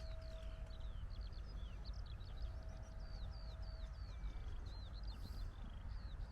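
Small birds chirping and singing, a busy run of quick high notes, over a steady low outdoor rumble.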